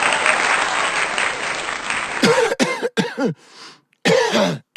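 A dense, noisy stretch of the dance track cuts off abruptly about two seconds in. A person then coughs in a quick run of three short voiced coughs, each falling in pitch, and coughs twice more near the end. The coughs are staged, exaggerated ones for the cough dance challenge.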